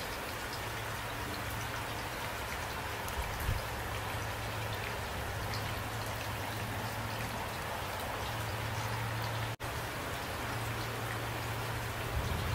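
Steady rain falling, with individual drops ticking against it and a low hum underneath. The sound drops out for a split second about nine and a half seconds in.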